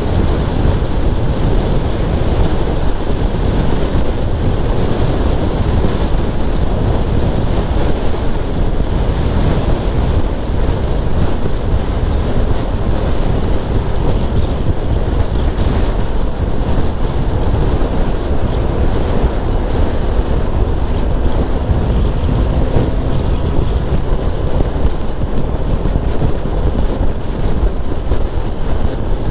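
Steady, heavy wind buffeting on an action-camera microphone on a motorcycle cruising at freeway speed, with the Honda CBR650F's inline-four engine and the tyres running underneath.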